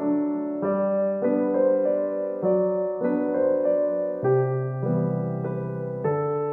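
Background music: a slow keyboard melody of held notes, changing about every half second.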